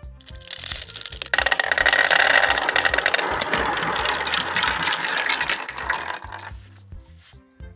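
Many marbles clattering and rattling down a marble run in a dense stream that swells about a second in and stops suddenly near the end, over background music.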